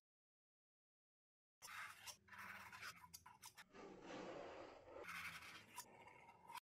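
Metal palette knife scraping and smearing thick acrylic paint across a cotton canvas: short irregular strokes with small clicks of the blade. The sound starts after about a second and a half of silence.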